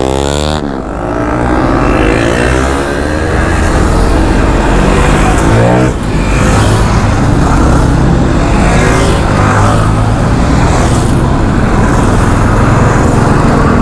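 KTM RC390's single-cylinder engine running while riding at speed, its pitch falling in the first second and then holding steady, under a constant rush of wind noise.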